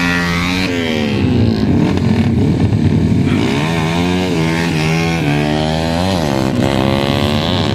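Several modified motorcycle engines revving hard, the pitch climbing and dropping again in repeated blips, with more than one engine sounding at once.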